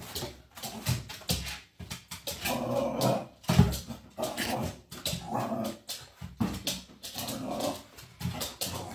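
Small dog growling and whining in short repeated bouts, with sharp knocks in between.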